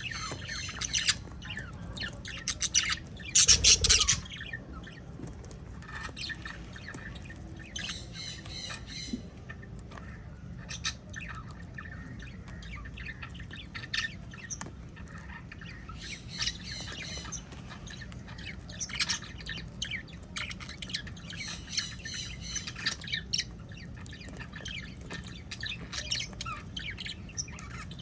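Many caged lovebirds and budgerigars chirping and squawking in a continuous chatter, with a loud burst of squawks about three to four seconds in.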